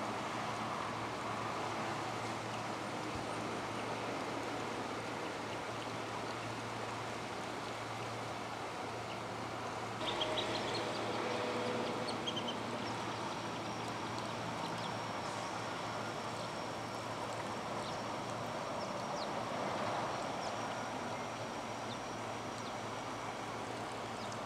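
Steady outdoor background noise with a low hum. A few short, high bird calls come around ten to twelve seconds in, and a faint thin high tone holds through the later part.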